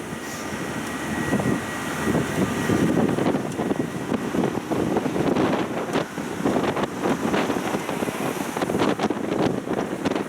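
Wind buffeting the microphone over the running noise of a small road tourist train, with many short knocks and rattles in the second half.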